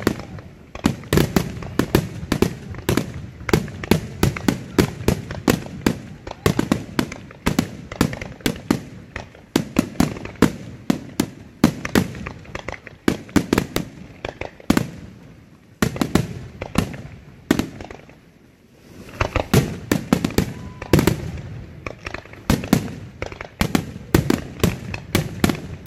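Aerial fireworks shells bursting in a dense barrage, several bangs a second, typical of a show's finale. The bangs ease briefly about eighteen seconds in, then come back thick again.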